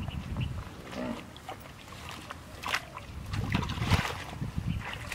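Irregular small splashes of water and rustling of grass, with a few low thumps and sharper crackles about a third of the way in and again near the middle.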